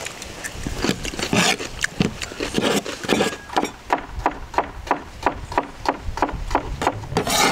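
Chef's knife chopping cucumber on a wooden cutting board: a few slower cuts, then a fast, even run of about five knife strikes a second on the board.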